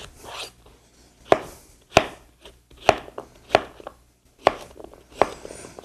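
Kitchen knife cutting zucchini: about six sharp knocks of the blade striking the board, irregularly spaced, a second or less apart.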